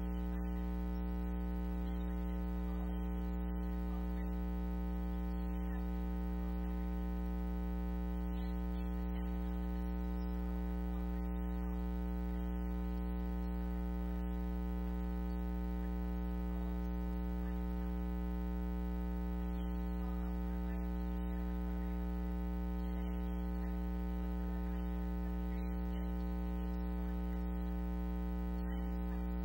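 Steady electrical mains hum: a low buzz with many unchanging overtones, holding at one level throughout, with no voice audible over it.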